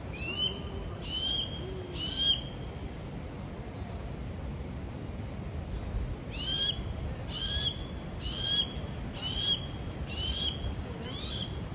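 Harris hawk calling over and over in short, high, rising calls: three in quick succession, then after a pause about six more, a little under one a second.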